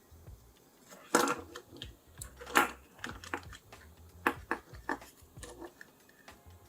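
Irregular clicks and taps of small plastic controller parts being handled and pressed into place during reassembly of a PS4 DualShock 4 controller, the loudest about a second in and again about two and a half seconds in.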